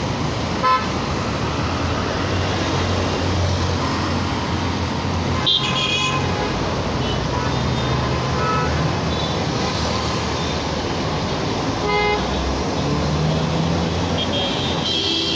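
Busy road traffic of buses, cars and auto-rickshaws: a steady mix of engine hum and tyre noise, with short horn toots about five and twelve seconds in.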